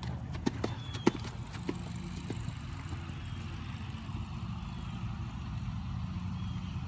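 Hoofbeats of a horse walking past on arena sand: a handful of sharp clops in the first two seconds, then only a steady low rumble as the horse moves away.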